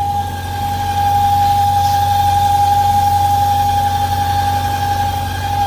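1998 BMW V8 engine idling with a steady, high whistle over the engine's low hum. The mechanic calls the whistle very characteristic of the PCV valve: crankcase overpressure that stops when the oil filler cap is opened.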